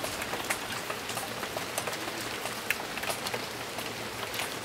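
Steady rain falling, a continuous even hiss scattered with many small, sharp drop ticks.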